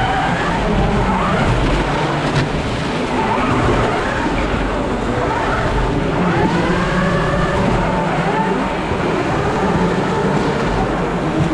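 Electric drive motors of an FRC competition robot whining as it drives and turns, the pitch rising and falling with speed, over a steady arena din.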